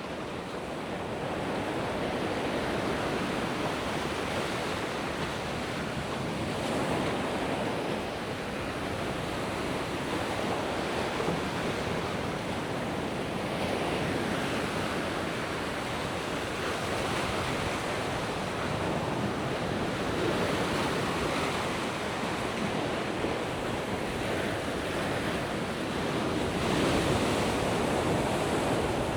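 Mediterranean sea waves breaking and washing up the beach in a continuous surf wash that swells a little louder near the end, with some wind on the microphone.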